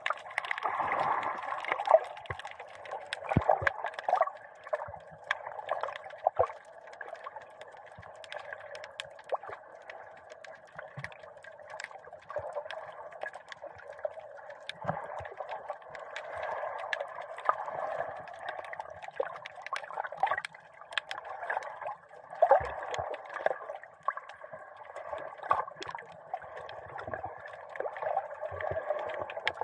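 Water sloshing and gurgling around an action camera in a sealed dive case, heard muffled through the housing as it moves at the surface, with scattered small clicks and a few louder surges.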